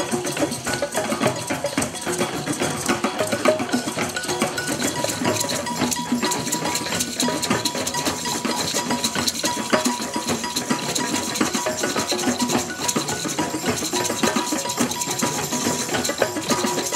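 Music with busy rattling, clicking percussion at a steady level.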